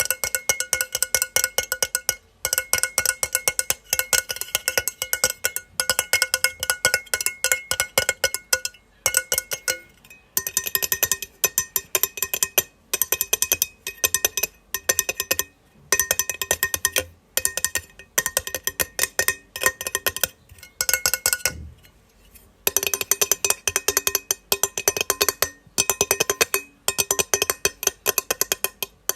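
Metal plate clicking rapidly in runs of many clicks. Each click rings briefly with a bright metallic tone, with short pauses between runs and a longer one a little after two-thirds of the way through.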